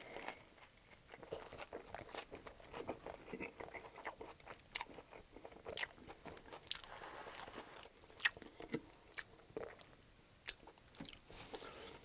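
Close-up biting and chewing of a Subway sub sandwich with crusty bread and fresh vegetables: irregular crisp crunches and clicking mouth sounds.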